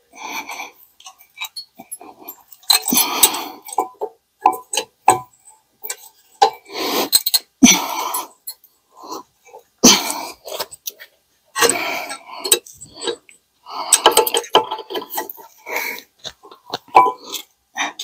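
A new brake pad being wiggled and pushed into the clips of a caliper mounting bracket: irregular metal scraping and clicking, short scrapes broken by sharp clicks and clinks.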